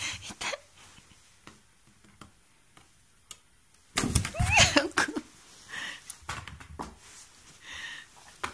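Light scratching and clicking on a cardboard box, then about four seconds in a loud burst of cardboard scraping and knocking as the box is shoved and lurches across the carpet, followed by softer rustling.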